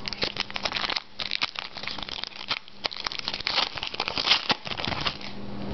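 Baseball card pack wrapper crinkling and tearing as the pack is opened and the cards are handled, in a dense, irregular crackle.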